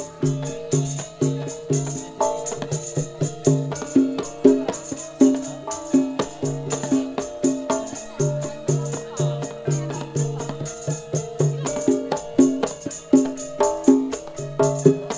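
Javanese gamelan ensemble playing a steady, quick rhythm of struck bronze keys and kettle gongs, with sustained ringing tones underneath.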